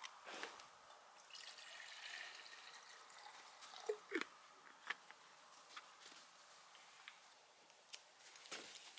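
Faint trickle of water poured from a bottle into a small camp-stove pot, followed by a few light clicks and knocks about four seconds in.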